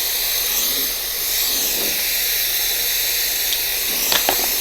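Compressed air hissing steadily out of an open, unplugged port in the ATC spindle's air lines, with a few light clicks near the end.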